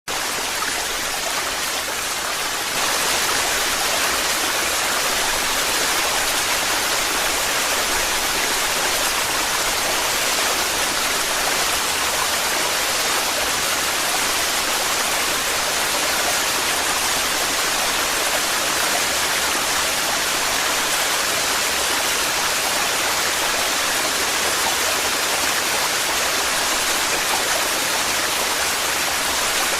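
Torrential waterfall: a steady rushing roar of falling water, a little louder from about three seconds in.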